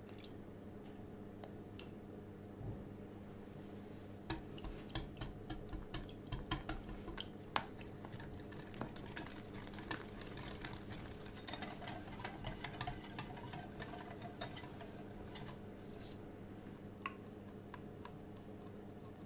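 Wire whisk mixing cocoa crepe batter in a glass bowl. A few seconds in come sharp clicks of the wires against the glass, which give way to quicker, lighter clicking and a wet swishing, and only a few clicks are left near the end. A faint steady hum lies underneath.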